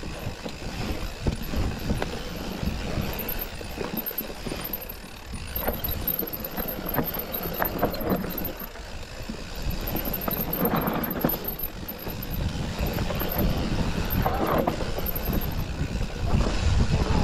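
A mountain bike riding a rough dirt trail: tyres rumbling over the ground, with constant clicking and rattling from the chain and frame. A couple of short squeals come through, near the middle and towards the end.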